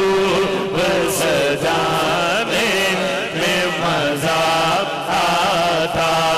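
A man singing a naat, an Urdu devotional poem, into a microphone, drawing out long, bending melismatic notes with no break for words. A steady low tone runs underneath.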